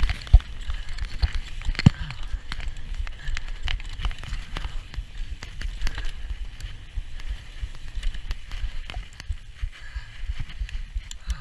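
Mountain bike ridden fast over a dirt trail: steady tyre rumble with many sharp knocks and rattles as the bike bounces over roots and bumps.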